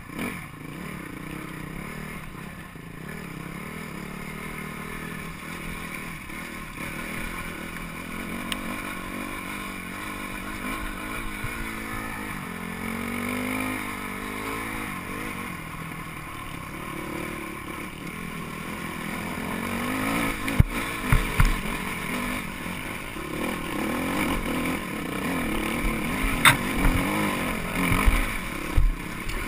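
Dirt bike engine running under way, its pitch rising and falling with the throttle. In the second half, sharp knocks and clatter come in as the bike rides over loose rocks.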